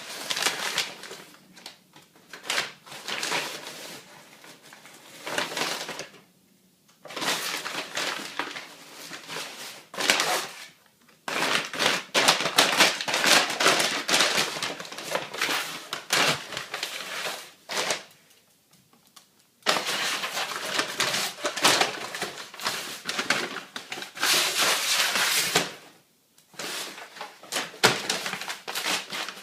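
A dog tearing and crunching a paper bag to get at the ball inside, the paper crackling and crumpling in long irregular spells with a few short pauses.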